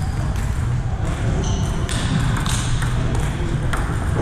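Celluloid-type table tennis ball clicking sharply off paddles and table in a rally, with more clicks from neighbouring tables. Short high squeaks cut in a few times over a steady low rumble of the hall.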